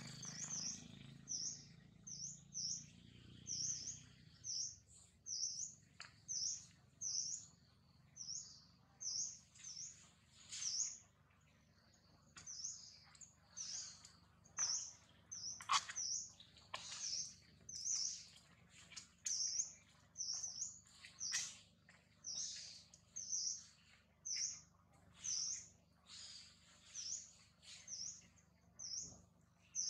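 A bird chirping: one short, high call repeated steadily, a little more than once a second.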